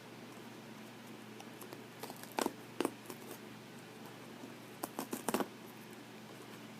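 Individually wrapped sanitary pad being handled and its wrapper opened: a few short, sharp crinkles and rustles in two clusters, about two and a half and five seconds in, over a steady low hum.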